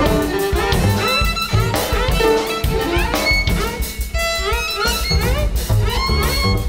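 Free-jazz quartet playing: a saxophone line over two double basses and a busy drum kit.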